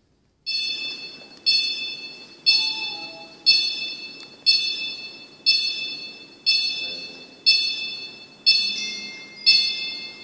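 Gym wall-mounted digital interval timer beeping a countdown: ten short, high electronic beeps, one a second, each fading quickly, counting down to the next minute mark on the clock.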